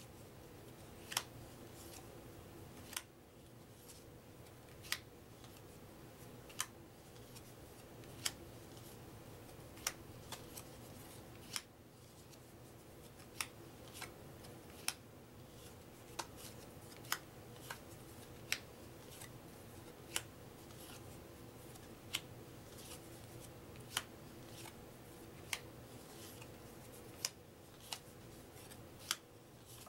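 Printed trivia cards being placed one by one onto a stack, each card giving a sharp click or snap about every one and a half to two seconds, over a faint steady room hum.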